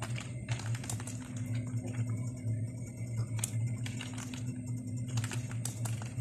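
Scattered, irregular clicks of computer keyboard keys being pressed, over a steady low hum.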